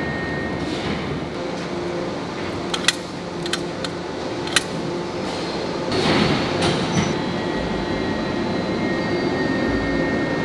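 Steady heavy-industry machinery noise with a faint high whine, a few sharp metallic clicks a few seconds in, and a surge of louder noise about six seconds in.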